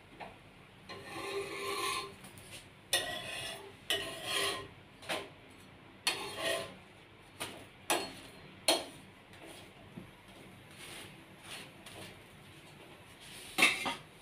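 Metal spatula scraping and clacking on a flat griddle (tawa) as a naan is pressed and turned: a series of short separate scrapes, the loudest one near the end.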